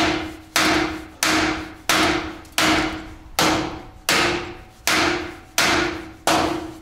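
Steady hammering: about ten sharp blows, roughly one every 0.7 seconds, each with a brief ring that dies away before the next.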